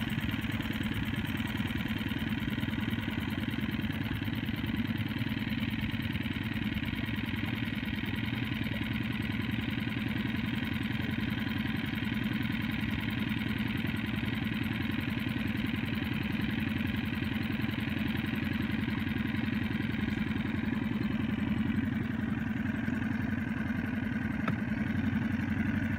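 A boat's engine running steadily.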